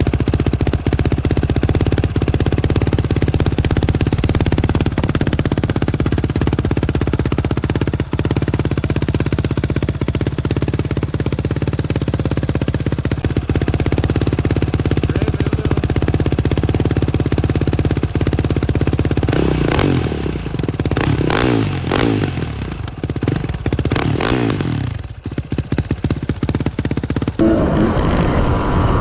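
2020 Yamaha YFZ450R SE's single-cylinder four-stroke engine idling steadily through an aftermarket full exhaust. About two-thirds of the way in it is revved in several blips, then it drops back, and near the end a rising engine note comes in.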